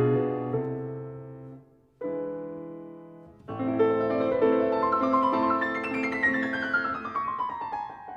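Solo piano background music. Chords ring and fade to a brief pause about two seconds in. Another chord follows, then a flowing passage with a run of notes descending in pitch near the end.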